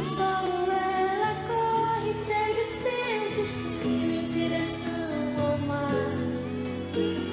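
Woman singing a song live into a handheld microphone over instrumental accompaniment, her voice holding and gliding between sustained notes.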